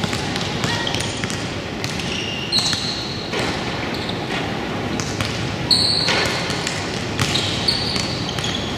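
Basketball game play in a gym: a basketball bouncing on the floor, with sharp high sneaker squeaks a few times (about 2.5 seconds in, around 6 seconds and near the end), over a steady background of voices from players and spectators.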